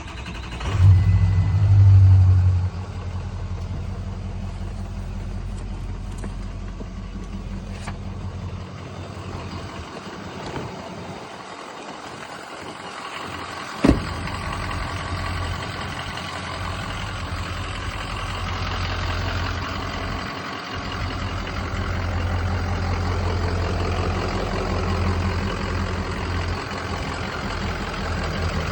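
A 2004 Ford F350's 6.0-litre V8 turbo diesel starts with a brief loud surge, then idles steadily. A single sharp knock comes about halfway through.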